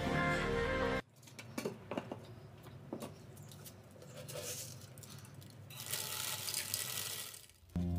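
Dry bait sprinkled onto a plastic bucket trap's wire fan-guard lid, a fine pattering that thickens for about a second and a half near the end. Scattered light clicks and taps come before it.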